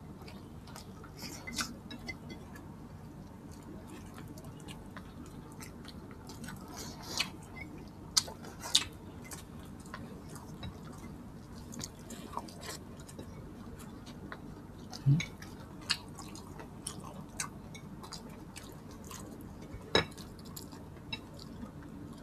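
Close-up mukbang eating sounds: chewing and lip smacks as rice and pork are eaten by hand. Scattered sharp wet clicks sound over a low steady background hum.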